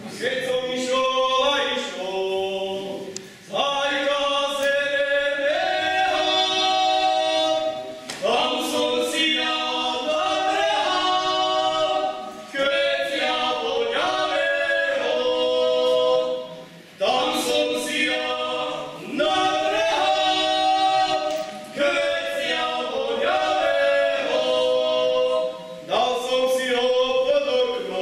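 Voices singing a song without accompaniment, in phrases of a few seconds each with short breaks between them.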